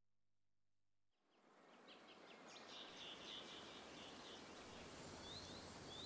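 Silence, then faint outdoor birdsong fading in about two seconds in: many short, high chirps and a few quick rising calls over a steady background hiss.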